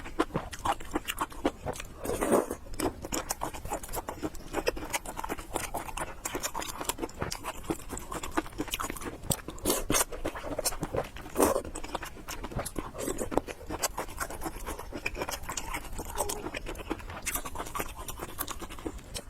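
Close-miked eating of noodles: chewing with a dense run of small clicking mouth sounds.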